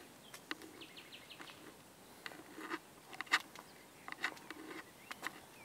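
Faint birdsong, a short run of high chirps about a second in and another call near the end, over scattered sharp clicks and knocks, the loudest about halfway through.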